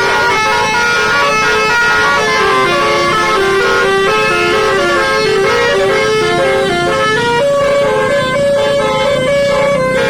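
Basuri telolet multi-tone air horn on a tour bus playing a fast, loud melody: a run of held horn notes stepping up and down without a break.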